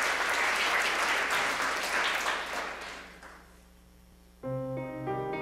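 Audience applauding, dying away about three seconds in; after a short hush, a grand piano begins playing held chords near the end.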